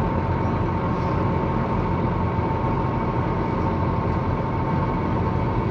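Tour boat's engine running steadily on the loch: a constant low drone with a thin, steady whine over it.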